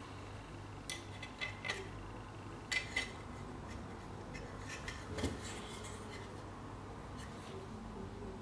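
A few light clicks and clinks as a laptop SSD and small metal drive parts are handled, the sharpest about one, three and five seconds in.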